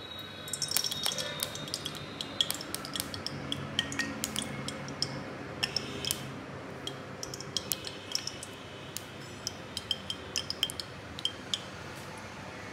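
A steel spoon and a metal oil pourer clinking against a stainless steel kadhai as spoonfuls of oil are measured into the pan: many light, irregular metallic clinks with a short ring.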